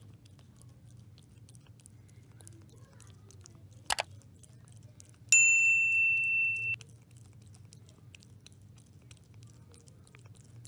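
A cat eating wet pâté from a steel bowl, with soft chewing and lapping clicks. About five seconds in, a loud bell-like ding rings for about a second and a half, then cuts off suddenly. A sharp click comes just before it.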